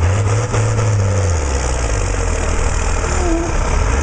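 Vintage diesel tractor engine working hard under full load as it drags a pulling sled. It runs steadily, its pitch sagging a little past the middle as the load builds.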